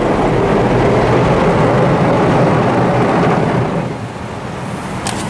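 Rotating side brushes of an automatic roll-over car wash scrubbing along a wet car's doors and windows, heard from inside the cabin: a loud, steady rush of bristles and water that eases a little about four seconds in.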